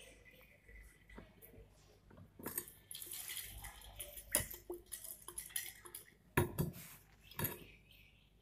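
A 250 ml glass conical flask being swirled by hand under a burette during a sodium thiosulfate titration, with the liquid sloshing inside. Several sharp glass clinks and knocks, the loudest a little after six seconds in, as the flask touches the burette tip and is set down on the board.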